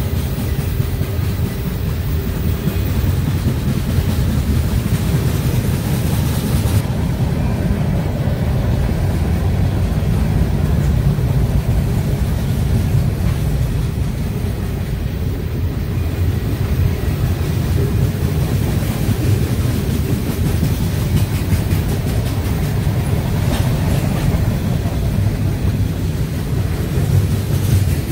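Freight cars of a mixed manifest train (covered hoppers, boxcars, tank cars) rolling past at close range: a steady, loud low rumble of steel wheels on the rails.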